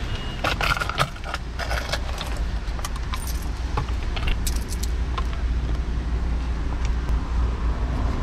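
Light metallic jingling in short spells during the first five seconds or so, over a steady low rumble.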